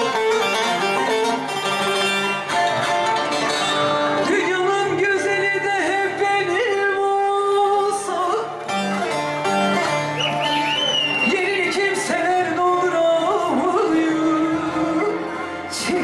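Bağlama (long-necked Turkish saz) playing, joined by a woman singing from a few seconds in, amplified through a microphone and PA loudspeaker.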